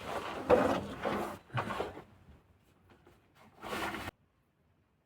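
Rustling and knocking of gear being handled, in several short bursts; the sound cuts off abruptly about four seconds in.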